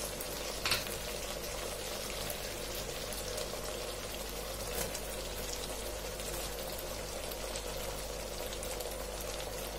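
Chicken tikka in an oily masala gravy sizzling and bubbling steadily in a pot, with one soft click under a second in.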